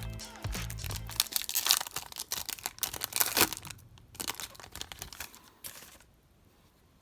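A plastic trading-card pack wrapper being crinkled and torn open, with dense sharp crackles that die away about six seconds in. Background music with a bass line plays under the first second and then stops.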